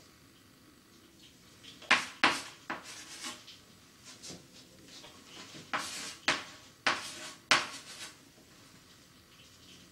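Chalk writing on a blackboard: a run of sharp taps and short scrapes as numbers are written, in two clusters, about two seconds in and again from about six to eight seconds in.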